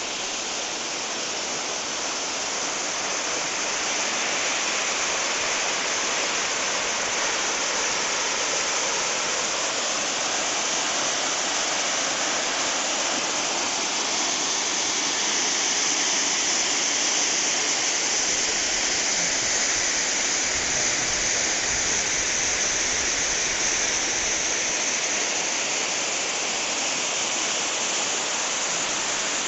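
Steady rush of a rocky mountain stream's water cascading over rocks, a dense hiss with no break, growing slightly louder a few seconds in.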